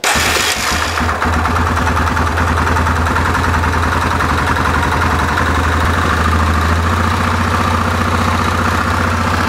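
Yamaha Kodiak 450 ATV's single-cylinder four-stroke engine idling steadily after a carburetor rebuild, running smoothly with the pilot air screw backed out half a turn.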